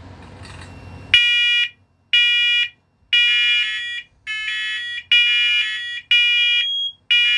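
Linked smoke alarms sounding their test alarm: loud, high-pitched pulsed beeps starting about a second in, about one per second. Tones of slightly different pitch overlap, as more than one unit sounds together.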